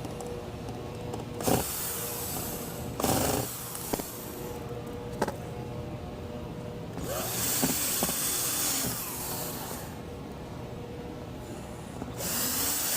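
Cordless power driver running in four short bursts, the longest about two and a half seconds, driving screws into the plastic deck box panels.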